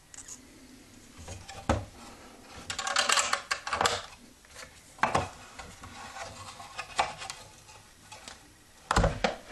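A wooden bocce-set box being handled and shut over its balls. Sharp wooden knocks and short clattering rattles, busiest about three seconds in, then single knocks spaced a couple of seconds apart.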